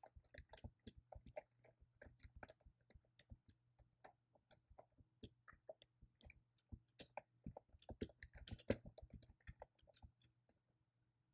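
Typing on a computer keyboard: an uneven, fast run of key clicks with short pauses.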